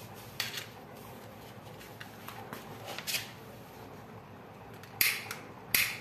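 Short, sharp clicks and scrapes off to the side over a faint steady hiss: one about half a second in, a few small ones building to a louder one around three seconds, and two loud ones close together near the end.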